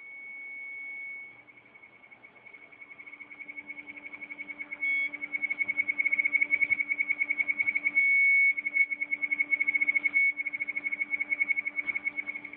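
High-pitched electronic tone from a damaged hard disk drive: a steady whine for about a second, then rapid beeping pulses that grow louder, broken by a few longer held notes.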